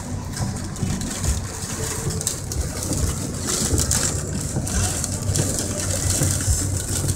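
Car driving through heavy rain on a wet highway, heard from inside the cabin: a steady engine and road hum under the hiss of rain and tyre spray. The hiss grows louder about halfway through.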